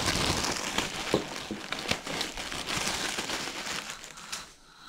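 Clear plastic packaging bag crinkling and crackling as it is pulled open by hand and a nylon leg holster is drawn out, dying down shortly before the end.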